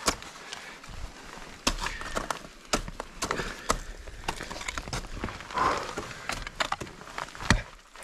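Ice tool picks and crampon front-points striking and biting into waterfall ice: a string of sharp, irregular hits and scrapes, the loudest one near the end.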